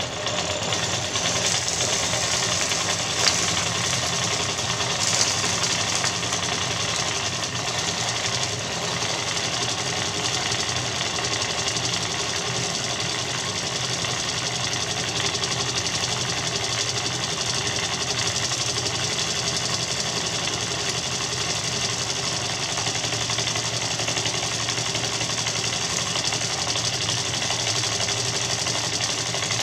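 Mamod SL1 live-steam toy locomotive running under steam, its oscillating cylinders exhausting in a fast, steady chuffing with a hiss of steam.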